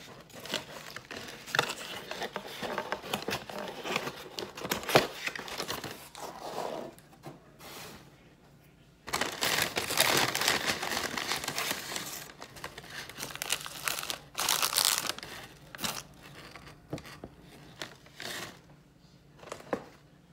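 Paper and cardboard takeout packaging crinkling and rustling as it is handled and opened, loudest for a few seconds in the middle while a paper bag is pulled open, then thinning to scattered rustles.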